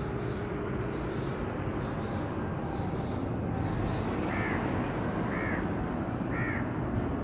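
A crow caws three times, about a second apart, over a steady low rumble of outdoor background noise. Small birds chirp high and rapidly through the first half.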